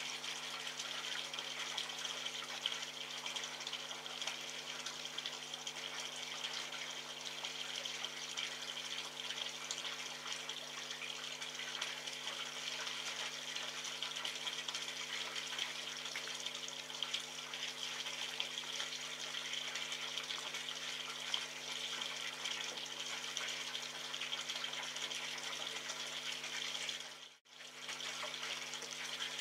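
Steady hiss with a low electrical-sounding hum underneath, cutting out for a moment near the end.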